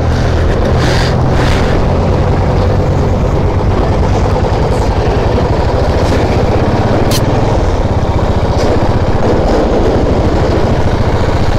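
Motorcycle engine running steadily as the bike is ridden along a road, with road and wind noise over the engine's low steady note. A brief click sounds about seven seconds in.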